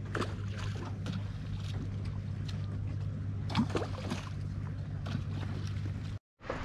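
Steady low wind rumble on the microphone, with scattered faint short cries in the distance. The sound cuts out for a moment near the end.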